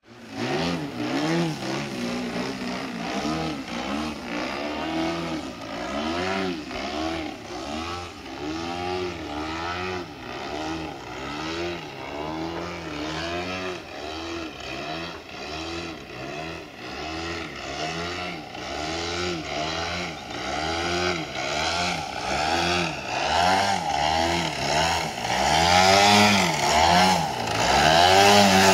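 Desert Aircraft DA-100 twin-cylinder two-stroke petrol engine on a 106-inch MX-2 aerobatic model plane, its pitch rising and falling over and over as the throttle is worked. It grows louder near the end.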